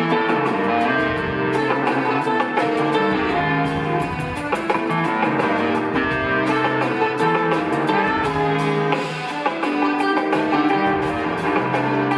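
Jazz-fusion band playing live in concert: held chords over a steady run of drum hits.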